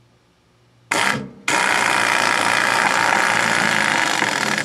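Central Pneumatic air impact screwdriver, set to its lowest speed, driving a drywall screw into wood. It gives a short burst about a second in, then runs steadily for about three seconds and stops abruptly.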